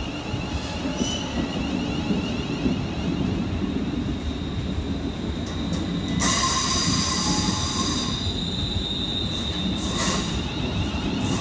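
Class 350 Desiro electric multiple unit pulling out past the platform, with a steady rumble of wheels on rail and a thin high electric motor whine. About six seconds in there is a loud high-pitched squeal for a couple of seconds, and a few short knocks near the end.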